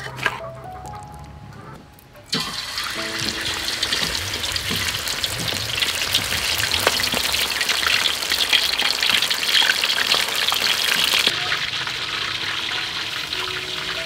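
Whole squid going into hot oil in a wok: a sudden loud sizzling about two seconds in, then steady vigorous deep-frying that eases slightly near the end. A sharp click at the very start.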